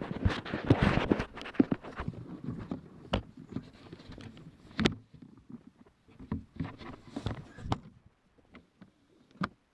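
Knocks, clunks and rattles of tools and gear being handled and set down in a car's cargo area, busiest in the first two seconds, then single sharp knocks every second or two.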